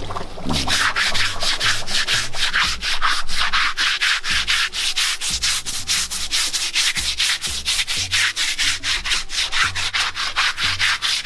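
A stiff hand brush scrubbed rapidly back and forth over a wet elephant's rough hide, about four or five rasping strokes a second, starting about half a second in.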